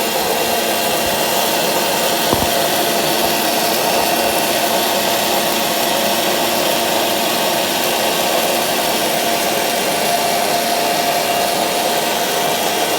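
A 1000-watt electric blender's motor runs at full speed, grinding dried lentils into fine besan (gram flour). It runs steadily at an even level, with no pause.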